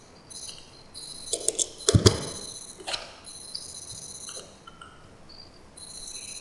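A few sharp computer mouse clicks, the loudest about two seconds in and another about a second later, over a steady faint high-pitched hiss and whine.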